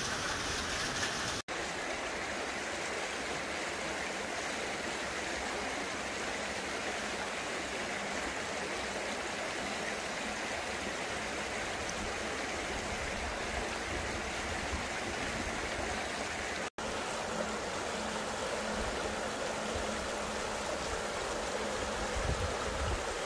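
Shallow mountain stream rushing and splashing over rocks, a steady flowing-water sound. It cuts out for an instant twice, about a second and a half in and again about seventeen seconds in.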